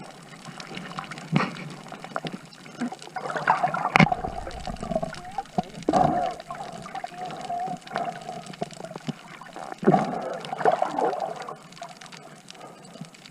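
Water sloshing and gurgling close to the microphone, with several sharp splashes or knocks at irregular moments.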